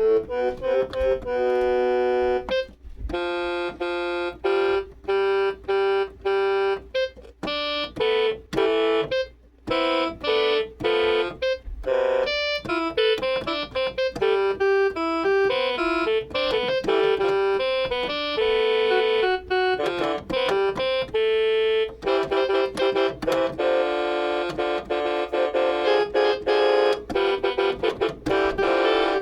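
Keyboard instrument playing a fast melody of short, separate notes, with a brief pause about nine seconds in.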